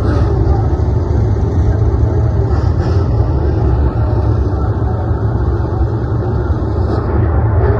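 Engines of a pack of dirt-track race cars running together on the oval, loud and steady with a deep low rumble.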